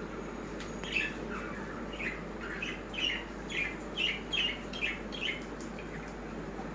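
A small bird chirping: a quick series of about nine short, downward-sliding chirps over a steady background noise.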